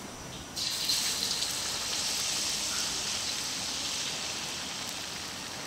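Hot cooking oil in a frying pan bursting into loud sizzling about half a second in as food goes in, then frying on with a dense, even crackle that eases a little toward the end.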